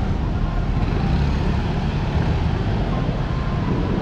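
Street traffic of motorcycles, motorcycle tricycles and cars passing close by, a steady low engine rumble with no single event standing out.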